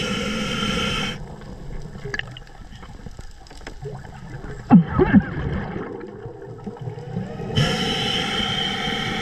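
A scuba diver breathing through a regulator underwater: a hissing inhalation that stops about a second in, a loud burst of exhaust bubbles gurgling past near the middle, and another hissing inhalation starting near the end.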